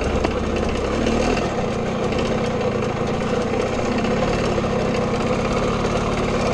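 Jawa Babetta moped's single-cylinder 50 cc two-stroke engine running steadily as the moped rides along the road.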